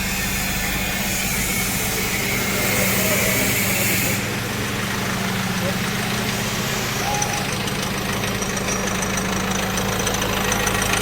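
Mahindra Marazzo diesel engine idling steadily, with a light, fast ticking coming in about two-thirds of the way through. The engine has a fault that sends the revs racing with a 'tak tak' knock whenever the accelerator is touched.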